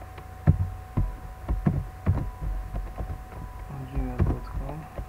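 Computer keyboard being typed on: irregular key clicks with dull thuds. They sound over a steady low hum and two faint steady tones. A brief stretch of voice comes about four seconds in.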